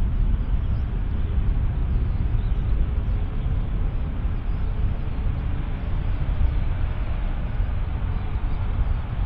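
Airbus A380's four Rolls-Royce Trent 900 jet engines running at low taxi power as it turns onto the runway: a steady, deep rumble.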